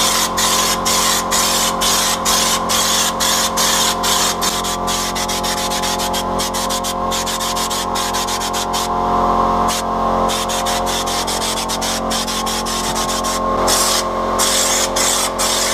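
Air-fed schutz-type spray gun hissing as it sprays U-Pol Raptor bedliner, with a rapid regular pulsing in the hiss and a steady hum underneath. The spray stops briefly about nine seconds in and again near the end.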